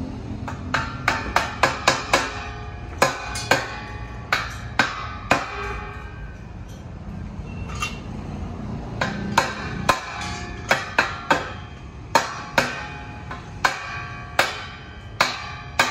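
Hammer blows on a polished steel twin-tube truck exhaust pipe, each strike ringing the metal briefly. The blows come in quick runs of several at a time, with a pause around the middle, over a steady low hum.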